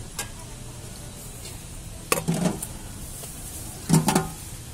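A long-handled metal dipper clanking against opened tin cans twice, a little under two seconds apart, as it scoops from them, with a light click near the start.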